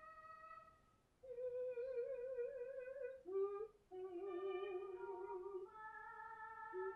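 Slow melody of long, wavering held notes. An earlier steady note fades out about a second in, then the tune resumes with several notes, each held for a second or two.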